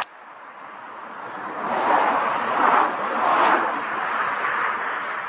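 Heavy hail shower: a steady rushing hiss of hail and wind. It builds over the first couple of seconds, then swells and eases in several gusts.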